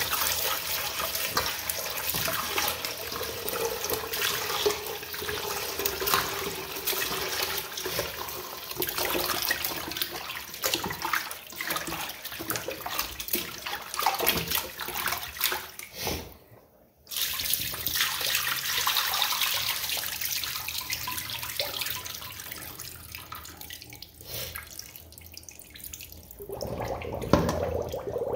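Tap water running into a stainless steel bowl in a sink while hands scrub and swish pieces of raw turkey neck, splashing. The sound drops out briefly about two-thirds of the way through, and there is a louder splash near the end.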